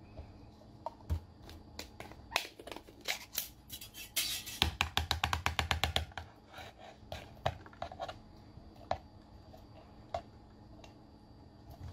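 Glass jar being tipped and shaken as sticky, sauced seafood is worked out of it onto a plate: scattered clicks and taps, with a quick run of rapid clicking about four and a half seconds in that lasts a second and a half.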